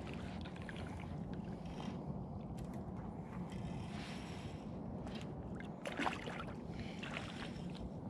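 Steady low rumble of wind and flowing river water on the camera microphone, with one short knock about six seconds in.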